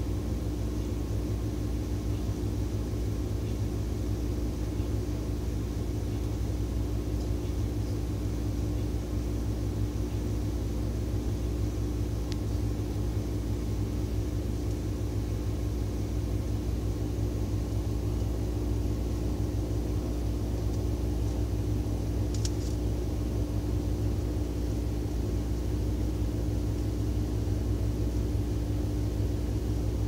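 Steady low rumble with a constant hum on top, unchanging throughout, with a faint click near the middle and a brief high tick about two-thirds of the way in.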